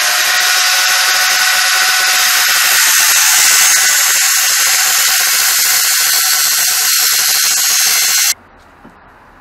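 Loud angle grinder running at full speed and grinding into a steel tube, a steady high whine with a rasping hiss. It is switched off and stops abruptly about eight seconds in.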